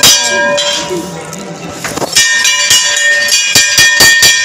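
Temple bells struck again and again at an irregular pace, each clang ringing on with clear metallic tones; the strikes come thicker in the second half.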